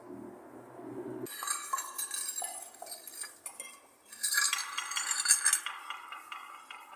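Light clinking, tapping and scraping of small hard objects handled and rubbed against hard surfaces, played as found sound. It starts about a second in with scattered ticks, then becomes a dense, louder jingling scrape from about four seconds in.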